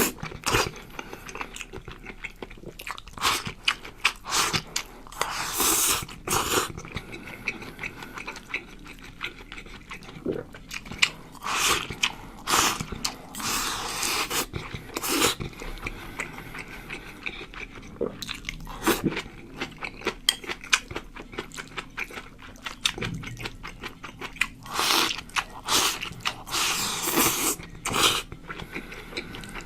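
A person chewing, biting and crunching lobster rice close to the microphone, in irregular bursts of loud, wet and crunchy mouth sounds.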